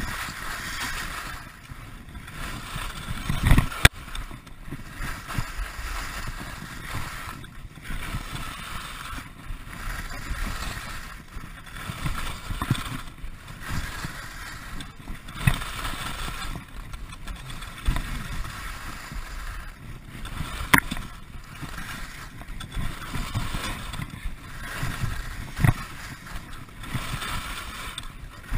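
Skis scraping and chattering over rock-hard, frozen piste through a series of turns, the noise swelling with each turn. A few sharp knocks come as the skis hit frozen bumps and ridges.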